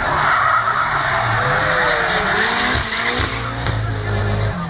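Drift car sliding sideways with its tyres screeching steadily, the car's engine running underneath.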